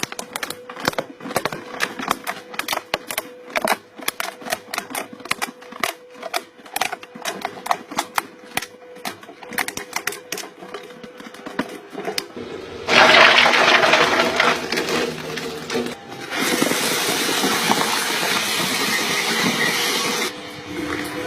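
Object being crushed in a machine: many sharp, irregular cracks and snaps over a steady hum, then a loud rushing, grinding noise in two stretches, starting about two-thirds of the way through.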